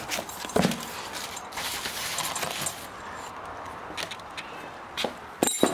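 Cardboard box flaps being pulled open and handled: scraping and rustling of cardboard, with a few sharp knocks, the loudest near the end.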